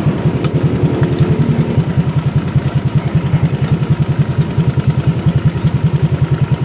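Honda Vario scooter's single-cylinder engine idling steadily through an aftermarket racing exhaust. The exhaust's mounting bolt has worked loose, which the mechanic blames for a rattling "kretek" from the exhaust.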